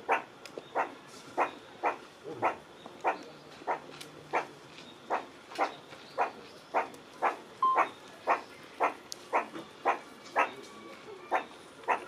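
Meerkat calling: a short call repeated steadily, about three every two seconds.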